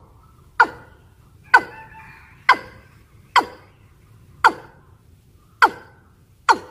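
Female watercock (ayam-ayaman) in breeding condition calling to males: a short call that drops steeply in pitch, repeated about once a second, seven times.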